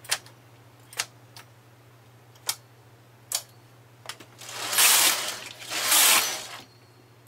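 Sharp metallic clicks, four of them spaced about a second apart, as a transfer tool moves stitches onto the latch needles of a knitting machine and its ribber. Near the end come two louder, longer scraping rustles, each lasting about a second.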